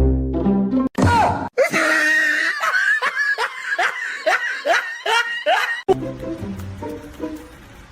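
A run of quick, rhythmic laughter in the middle over background music.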